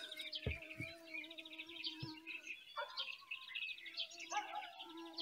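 Early-morning birdsong: several birds chirping and singing rapid high trills. A steady, drawn-out lower tone sounds underneath twice, and there are a few dull thumps in the first two seconds.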